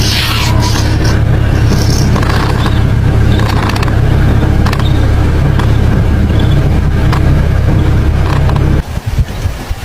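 A motor vehicle's engine running steadily with a low hum, cutting off suddenly near the end.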